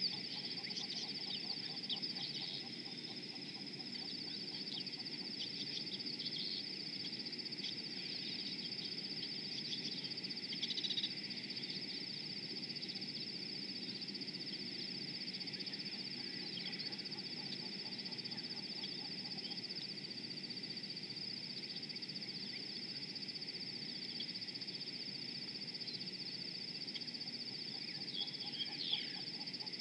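Frogs calling in a continuous rhythmic chorus beside a river, under a steady high-pitched trill, with scattered short bird chirps that are loudest about a second in, around ten seconds in and near the end.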